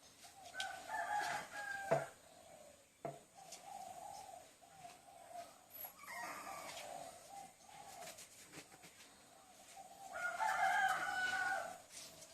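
A rooster crowing a few times, with softer cooing calls in between.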